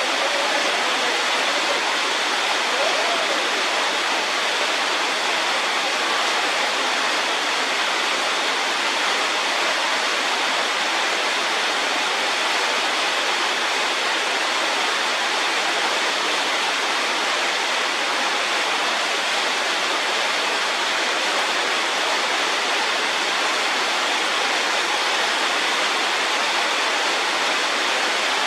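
Steady, even rushing noise, like running water or a hiss, with no breaks or changes in level.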